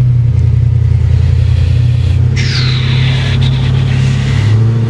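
A steady low mechanical hum, loud throughout, with a brighter higher-pitched noise that sets in about halfway through, dips in pitch at its start and lasts about two seconds.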